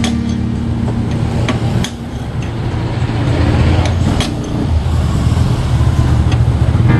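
A motor vehicle engine running with a steady low rumble, with a few sharp metallic clicks of socket tools knocking against the motorcycle's steering head.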